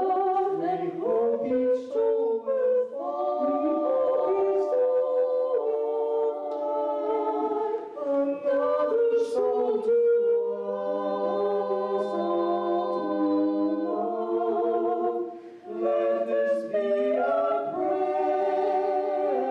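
Three voices, a man and two women, singing a cappella in harmony through microphones, with long held notes.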